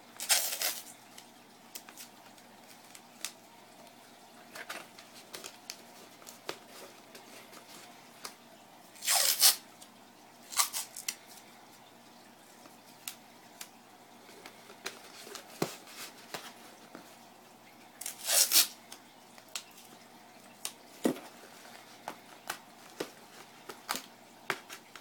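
Masking tape pulled off the roll in three short rips, near the start, about nine seconds in and about eighteen seconds in, between small taps and crinkles as strips are pressed down over a foam-lined cardboard box.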